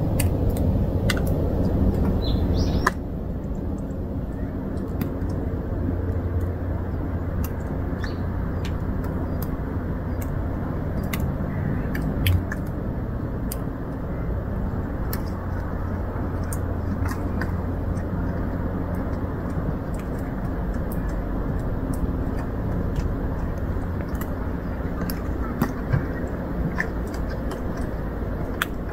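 Steady low outdoor background rumble with scattered faint clicks; it drops slightly in level about three seconds in.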